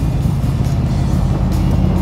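V8 engine of an open Shelby Cobra replica running steadily at cruising speed, heard from its cockpit.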